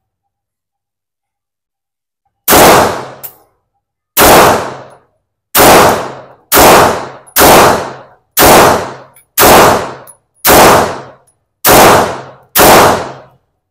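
Walther Q5 Match Steel Frame Pro 9mm pistol firing ten single shots at a slow, even pace of about one a second, each shot loud and sharp with a brief echo trailing off.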